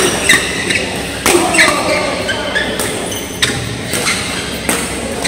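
Badminton rally: rackets hitting the shuttlecock in a series of sharp cracks, about one every second, echoing in a large hall.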